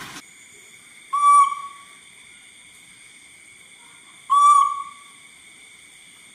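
Baby macaque giving two short, clear coo calls about three seconds apart, each a whistle-like tone that fades out.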